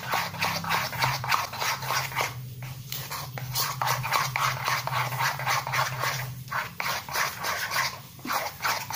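Metal spoon stirring and scraping baby powder around a small ceramic bowl, a quick irregular run of scrapes and clinks, over a low steady hum.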